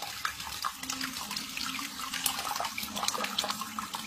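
Tap water running and splashing over cupped hands and a small wet animal in a basin, with many quick irregular splatters.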